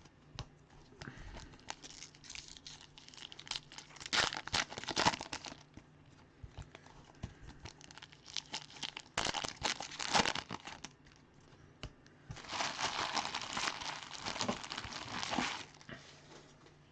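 Trading card packs being handled: foil pack wrappers crinkling and tearing open and cards rubbing and sliding against each other, in several short bursts, with a longer stretch of crinkling from about twelve seconds in lasting some three seconds.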